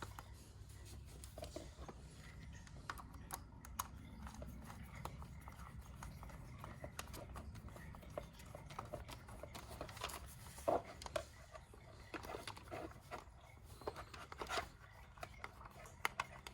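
Small screws being tightened into a toy's battery cover: faint, scattered clicks and rubbing of a screwdriver and plastic being handled, with a few sharper ticks.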